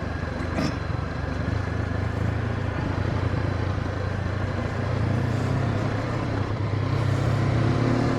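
Honda CB500X's parallel-twin engine running at low, steady revs as the bike rides down a dirt trail, picking up slightly about five seconds in.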